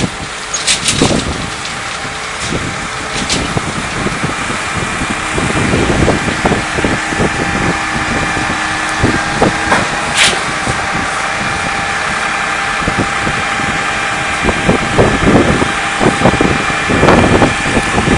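Concrete pump running: a steady engine drone with a constant high whine, broken by irregular low knocks and one sharp clack about ten seconds in.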